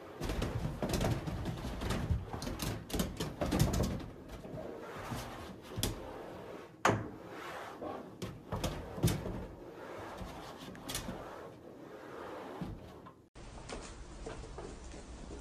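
Shower water running behind a glass shower door, with repeated knocks and squeaks against the glass as a cat paws and jumps at it and a squeegee wipes the other side.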